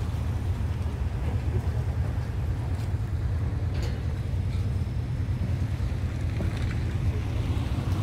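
Seaside ambience made up mostly of a steady low rumble of wind buffeting the phone's microphone, with a few faint clicks.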